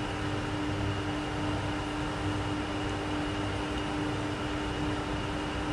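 Steady hum of running machinery: a constant mid-pitched tone with a fainter high whine above it, over an even hiss.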